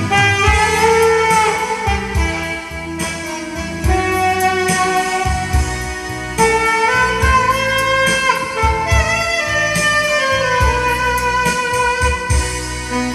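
Saxophone playing a legato melody over a backing track with a steady drum beat, in the instrumental break between verses of a ballad.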